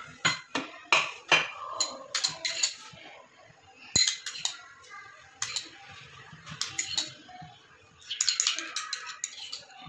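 Sharp clinks and knocks of metal utensils against a metal cooking pot, coming in irregular clusters, with a single louder knock about four seconds in.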